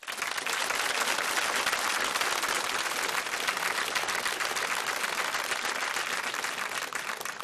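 Studio audience applauding: many hands clapping, starting suddenly and holding steady.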